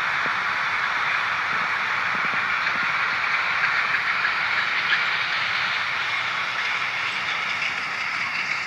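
Container freight train rolling past: a steady rushing noise of steel wheels on the rails with a few faint clicks, beginning to fade near the end.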